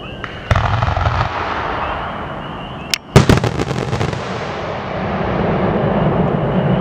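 Aerial firework shells exploding: a loud burst with crackling about half a second in, then a tight cluster of sharp bangs about three seconds in, the loudest moment, trailing off into a rolling rumble and hiss.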